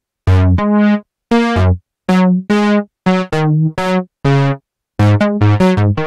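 Waldorf Kyra virtual-analog synthesizer playing a phrase of short, bright pitched notes, each one mellowing as it sounds. About five seconds in the notes come faster, around four or five a second.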